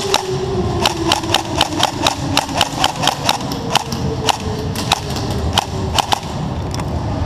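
Airsoft guns firing: an irregular string of sharp cracks, about twenty shots, from about a second in until near the end.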